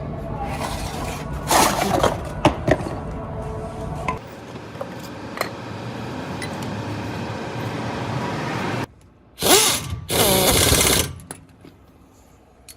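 A power tool running with a rattling, hammering sound and sharp metallic clicks. It stops about nine seconds in, then runs again briefly in a second loud burst.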